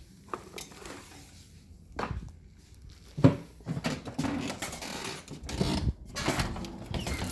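A few knocks and clatter of things being handled, the loudest a sharp knock a little over three seconds in, with busier rattling after it.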